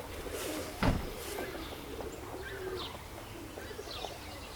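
Domestic pigeons cooing softly in low, wavering calls, with a few thin chirps from small birds. A brief thump sounds about a second in.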